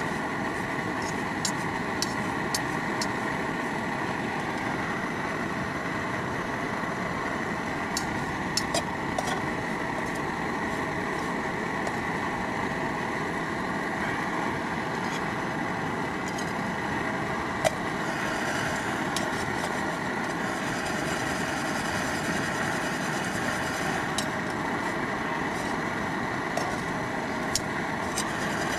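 Steady rush of falling water, unchanging throughout, with a dozen or so short sharp clicks scattered over it.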